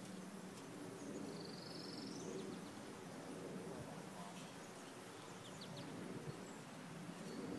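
Faint outdoor background with a low steady murmur, a single high, slightly rising bird call about a second and a half in, and a few faint ticks.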